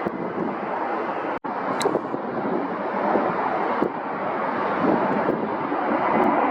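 Steady rushing jet aircraft noise mixed with wind on the microphone, broken by a very brief dropout about a second and a half in.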